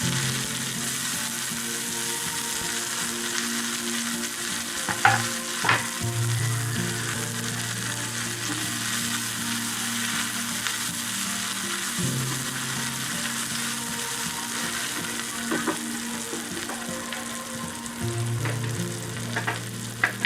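Small onions and green chillies sizzling as they fry in hot oil in a pan, stirred, with a few sharp clinks of the spoon against the pan about five seconds in and again near the end.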